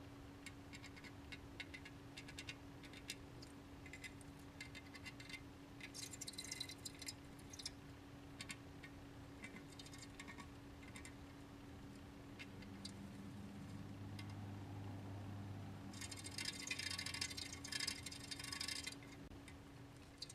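Campbell's dwarf hamster scratching and shuffling at a plastic wheel and in paper bedding: faint scattered scratches, with denser bursts of scratching around six seconds in and from about sixteen to nineteen seconds in. A faint steady hum runs underneath.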